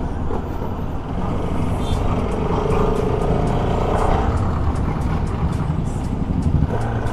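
Bajaj Pulsar RS200 motorcycle's single-cylinder engine running as it is ridden along the road, mixed with wind and road noise.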